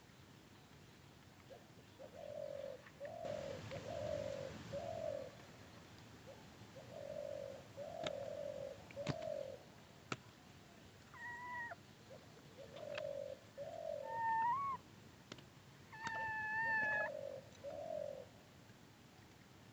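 A dove cooing over and over in short runs of three or four low notes. There are a few sharp clicks, and three higher drawn-out calls in the second half.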